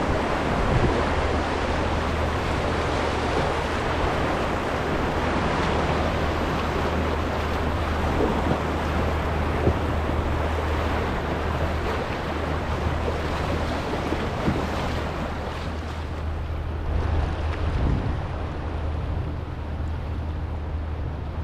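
Steady rush of river water through a riffle and wave train around a canoe, easing a little near the end.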